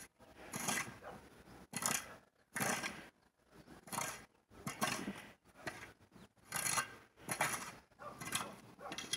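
Snow shovel scooping and scraping through fresh snow in a run of short strokes, about one a second.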